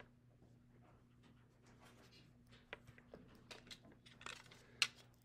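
Faint scratching and light ticks of a pencil on paper, and a plastic ruler being moved and set down with a sharper click near the end, over a low steady hum.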